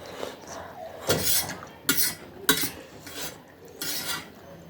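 Eating utensils clinking and scraping against a dish while instant noodles are stirred, in four or five separate strokes.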